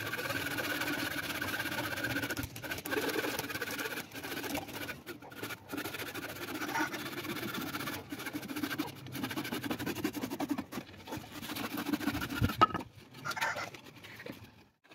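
Hand saw cutting through a wooden plank in repeated back-and-forth strokes. It stops about twelve seconds in, with a sharp knock.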